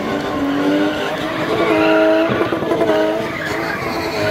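BMW M20 straight-six engine held at high revs during a spinning run, its pitch rising and dipping a little, with tyres screeching.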